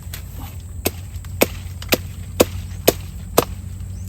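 A blade chopping into a nipa palm fruit to open it: six sharp strikes, about two a second, over a steady low rumble.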